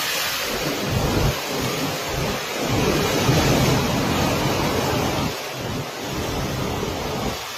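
Typhoon wind and heavy rain: a steady loud hiss of rain with strong gusts buffeting the microphone in low surges that come and go.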